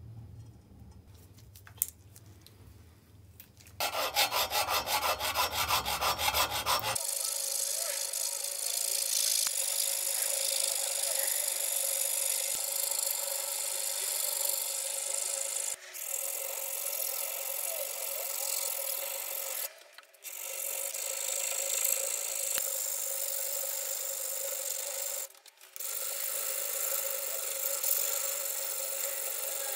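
Hand file rasping across the bare metal body of an antique cast grater held in a vise, metal scraping on metal. It starts after a few quieter seconds and runs in long steady passes, broken off briefly three times.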